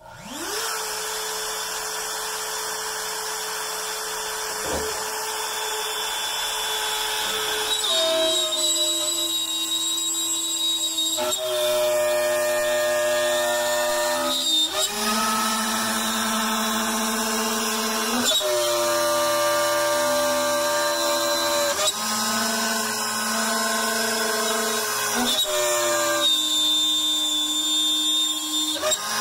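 Makita trim router on a LongMill benchtop CNC spinning up, running free for several seconds, then cutting deep pockets in maple with a large roughing bit. Under load its pitch sags on each pass and recovers briefly every three to four seconds as the pass ends. The router is working at the limit of its power.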